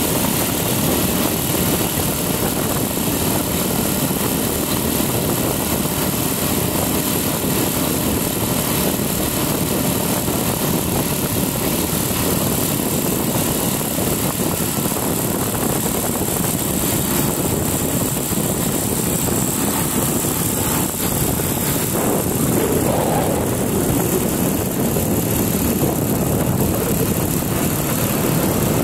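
Motorcycle running at a steady riding speed, its engine noise mixed with the rush of wind and road noise.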